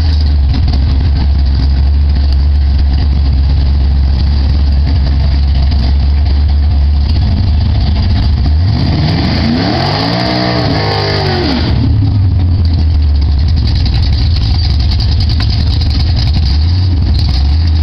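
Drag race cars' engines idling with a steady deep rumble; about nine seconds in, one engine revs up and falls back down over a couple of seconds.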